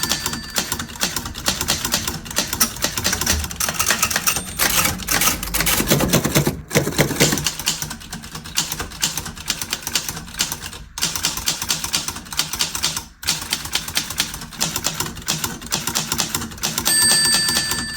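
Manual typewriter typing in rapid keystrokes, with a few brief pauses, and the carriage bell ringing once near the end.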